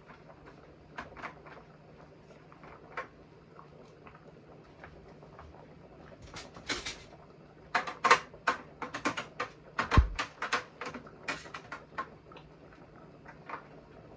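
Kitchen clatter of utensils and cookware: scattered clicks and knocks, a quick flurry of them in the second half, with one heavy thump about ten seconds in.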